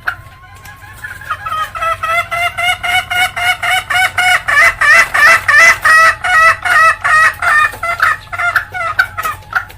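Junglefowl hen cackling (ngekek): a rapid run of short, harsh, pitched notes, about four a second. It starts about a second in, builds to its loudest in the middle and stops just before the end.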